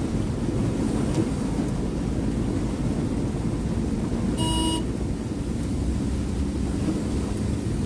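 Steady low rumble of a vehicle driving along a waterlogged road, heard from the moving vehicle. A brief vehicle horn toot sounds about halfway through.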